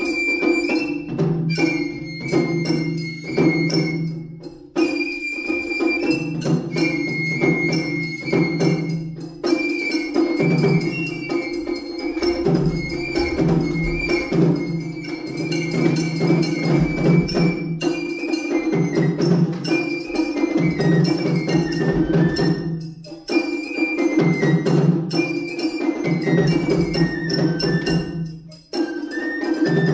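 Japanese festival hayashi music: a shinobue bamboo flute playing a high, stepping melody over a steady rhythm of shime-daiko and a larger taiko drum. The playing thins out briefly about five seconds in, again near 23 seconds and just before the end.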